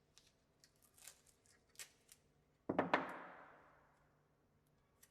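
Handling noise from small workshop objects: scattered light clicks and taps, then one sharp knock a little under three seconds in that fades out over about a second.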